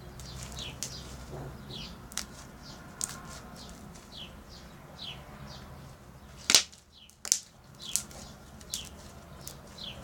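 Small birds chirping over and over, each a short downward-sliding chirp, with a few sharp clicks or pops; the loudest click comes a little past the middle.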